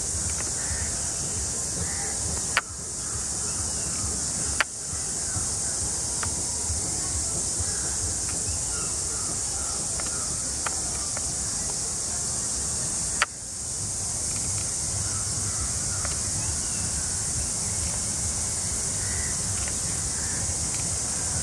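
Steady, high-pitched drone of forest insects such as cicadas or crickets. Three sharp clicks cut in, each followed by a brief dip in the drone.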